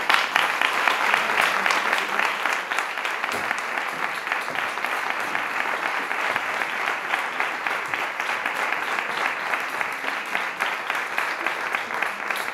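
Audience applauding: dense, sustained clapping that sets in sharply and is loudest at first, then carries on at a slightly lower level.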